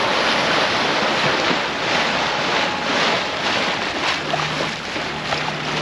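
Bow wave rushing and splashing along the hull of a Catalina 42 sailboat under way, with wind on the microphone. A faint low steady hum joins about four seconds in.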